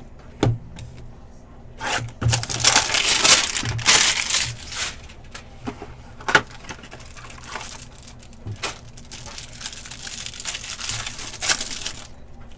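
Foil trading-card pack wrappers and packaging being torn open and crinkled, in two long stretches, with a few sharp clicks between from the packs and cards being handled.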